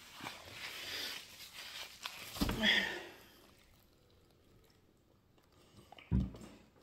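Sniffling and paper-tissue rustling as a nose is wiped, loudest about two and a half seconds in. Then it goes quiet while juice is drunk from a plastic cup, with a short soft knock about six seconds in.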